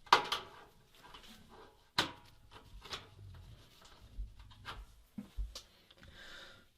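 Tools and small parts being picked up and set down on a work surface while a workspace is cleared: a series of sharp knocks and clatters, the loudest right at the start and another about two seconds in, with lighter taps after.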